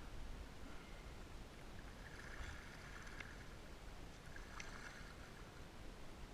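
Kayak paddle strokes in the water, two soft splashing strokes about two seconds apart, each with a short click, over a faint low rumble.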